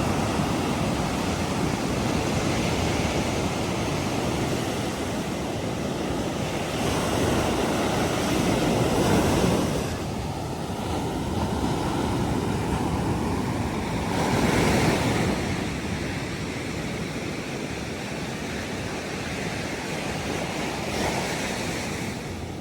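Heavy surf: waves breaking and washing in a continuous rush, with louder swells cresting about a third of the way in, around two-thirds of the way in and again near the end. The sea is too rough to swim in.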